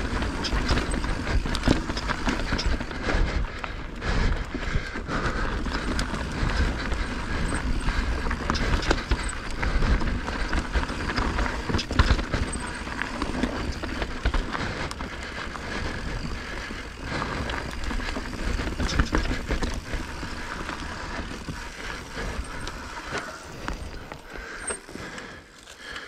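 Mountain bike riding fast down a dry, rocky dirt trail: tyres crunching over loose stones and ruts while the bike rattles and clatters over the bumps, quietening near the end as it slows.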